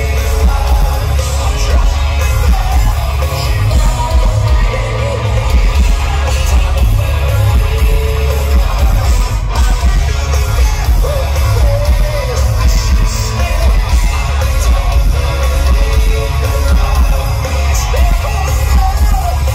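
Live rock band playing at full volume: drums and cymbals, electric guitar and a heavy bass low end under a male lead vocal sung into a microphone.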